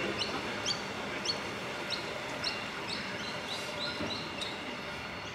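A small bird chirping over and over: short, quickly rising chirps, about three a second.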